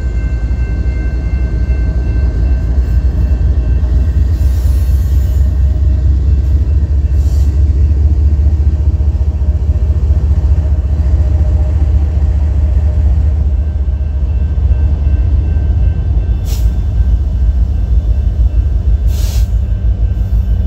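A train rolling past with a loud, steady low rumble, and a couple of sharp clicks near the end.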